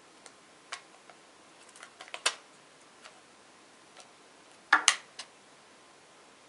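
Light clicks and knocks of the plastic parts of a two-wheel robot car chassis kit being handled, a battery holder pressed to the acrylic plate and the chassis turned over in the hands. A quick cluster of clicks comes about two seconds in, and a louder double knock comes near five seconds.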